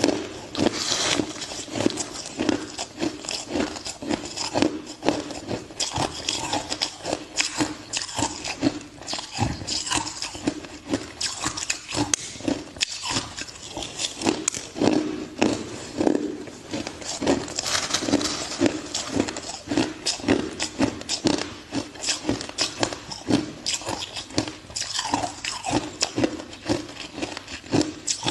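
A person biting and chewing ice close to the microphone: dense, irregular crunching and cracking, many crunches a second.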